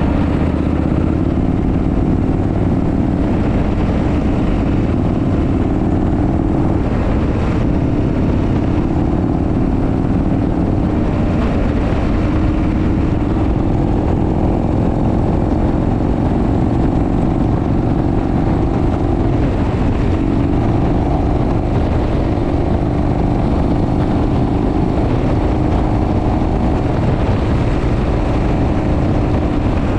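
1972 Harley-Davidson FX Shovelhead's air-cooled V-twin engine running steadily under way at road speed, with a few small shifts in pitch.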